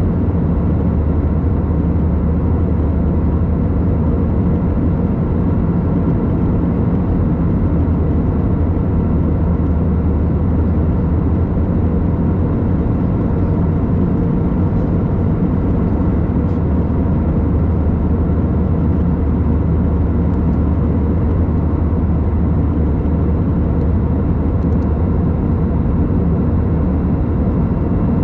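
Steady, even drone of an Airbus A321's engines heard inside the cabin from a window seat by the wing, with faint steady tones over a low rumble.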